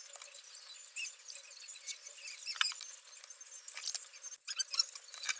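Close-up eating sounds: a metal fork cutting into soft protein bread and clicking and scraping on a plastic tray, a run of sharp clicks and short squeaks, loudest about four seconds in.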